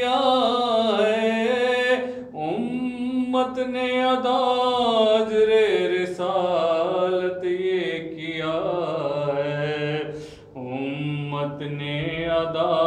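A man's voice singing an Urdu noha (lament) unaccompanied, drawing out long wavering notes that slide in pitch, with a breath between phrases every few seconds.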